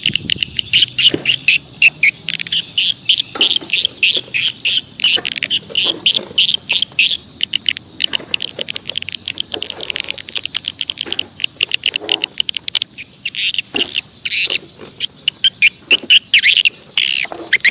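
Birds chirping in fast, continuous runs of short, high calls, with a few knocks mixed in.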